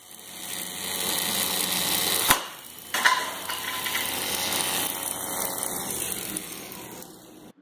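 Brushless RC-airplane motor spinning a solid 3D-printed drum weapon through a polycord belt: a high whine that builds over the first second, holds steady, then winds down toward the end. Two sharp knocks come about two and three seconds in.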